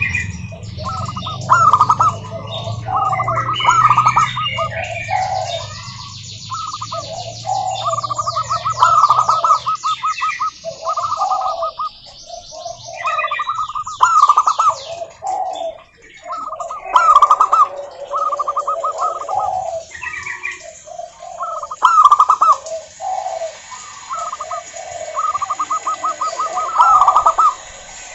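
Zebra doves (perkutut) cooing, repeating short, staccato, trilled coos in overlapping phrases. Higher chirping comes and goes, and a low hum fades out about ten seconds in.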